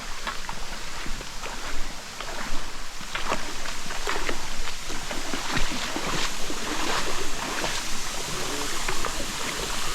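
Rushing stream water, steady and loud, with frequent short sharp clicks and knocks over it.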